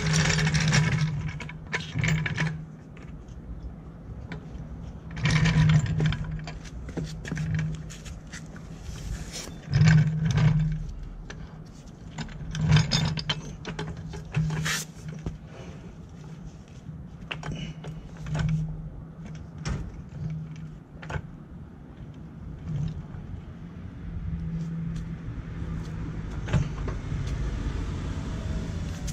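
Low-profile floor jack being rolled over pavement and worked into place under a car's jacking point, its casters rumbling in irregular bursts with metal clanks, clicks and scraping. The sound settles into a steadier rumble near the end as the saddle comes up against the underbody.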